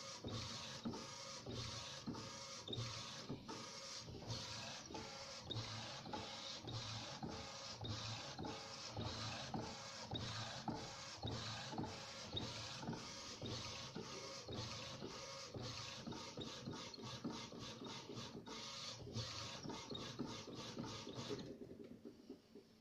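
Epson SureColor SC-P600 inkjet printer, converted for direct-to-garment printing, printing: the print-head carriage shuttles back and forth in rapid, even strokes, each with a mechanical whir. Near the end the shuttling stops and the sound drops away.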